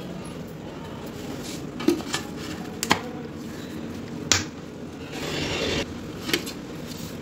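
Sharp plastic clicks and knocks as the bowl and lid of an electric chopper are fitted and pressed. About five seconds in, a short burst of noisy whirring follows as the chopper grinds fried chana dal pieces into a coarse crumb.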